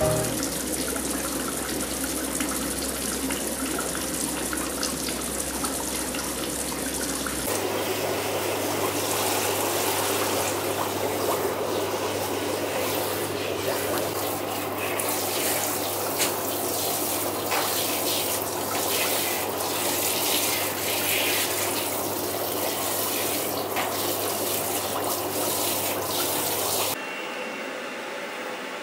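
Water from a handheld shower head spraying steadily onto a poodle's wet curly coat and splashing in the bath. Near the end it cuts suddenly to a quieter, steady hair dryer blowing.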